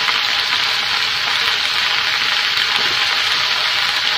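Choy sum and sliced meatballs sizzling steadily in a hot wok as they stir-fry.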